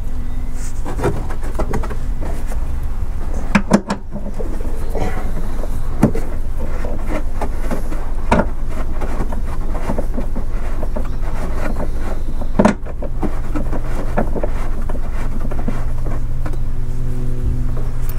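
Scattered metal clicks and knocks from hand tools working on a car's rear shock absorber mounting, a few seconds apart, over a steady low rumble.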